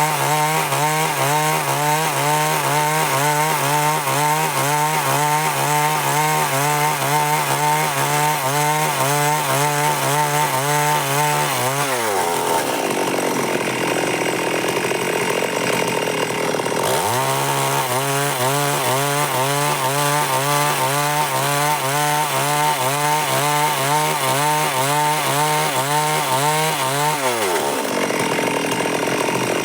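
Stihl MS 382 two-stroke chainsaw cutting wood at full throttle, its pitch wavering rhythmically under load. About 12 seconds in the revs fall away for some five seconds, then it revs up and cuts again until the pitch drops near the end.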